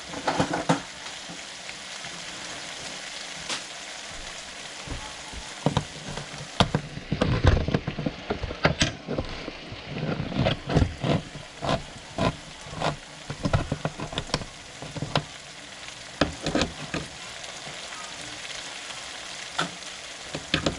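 Food sizzling steadily in a pot on the stove. Through the middle stretch a run of sharp clicks and knocks comes as a metal can beside the pot is opened.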